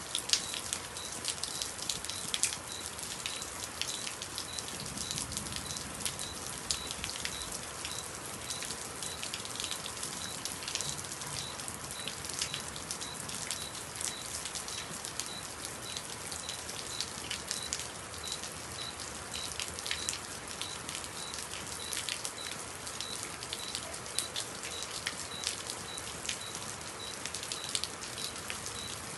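Heavy rain falling steadily, with a constant hiss and many sharp drop impacts on a hard surface.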